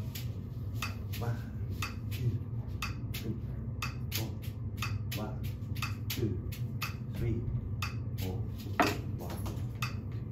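Steady metronome clicks with drumsticks tapping a tabletop along with them, and one louder stick hit about nine seconds in. This is an off-beat exercise: the click marks the last note of each triplet rather than the beat.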